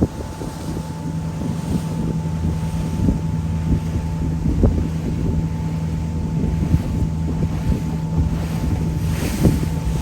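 Tour boat's engine running at a steady drone, with wind buffeting the microphone.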